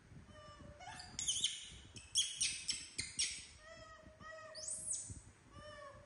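Baby macaque giving a run of short, high-pitched squeals and chirps, one after another: the distress calls of an upset infant monkey.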